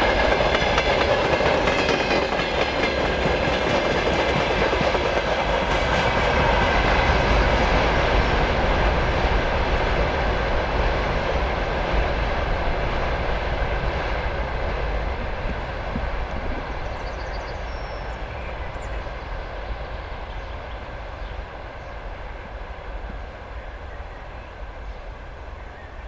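Long freight train's wagons rolling past, wheels clattering over the rail joints, the noise steadily fading as the train moves away. A few faint bird chirps come through about two-thirds of the way in.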